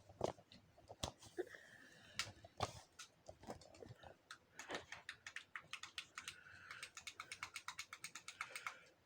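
Fidget toys being handled: scattered sharp clicks and pops, then a fast even run of clicks, about seven a second, from about halfway through until just before the end.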